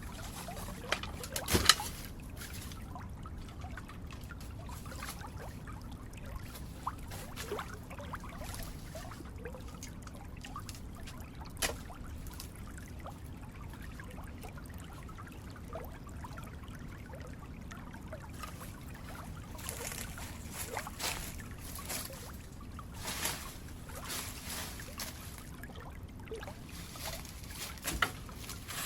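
Water trickling steadily, with scattered light knocks and clicks throughout and a few sharper ones.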